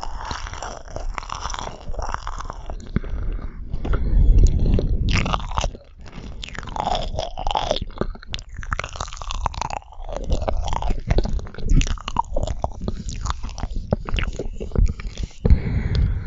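Close-miked chewing and mouth sounds of someone eating marshmallows: irregular sticky smacks and clicks of lips and tongue, louder about four seconds in.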